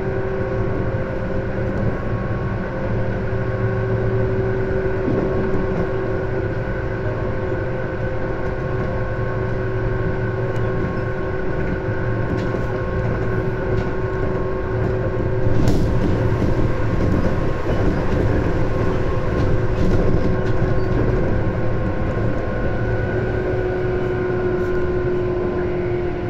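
Tobu 10030 series electric train running, heard from inside the carriage: a steady rumble of wheels on rail with several steady whining tones. A sharp click comes a little past halfway, and the rumble grows louder for a few seconds after it.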